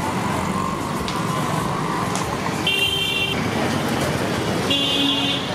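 Steady street traffic din with two short vehicle horn toots, about three and five seconds in, the second lower-pitched.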